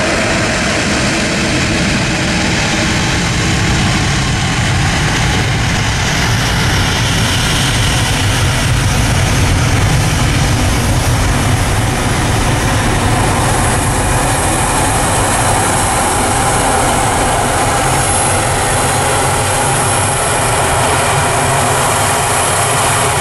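Boeing 737's twin jet engines running at low taxi power: a steady rumble with a thin high whine that becomes clearer in the second half.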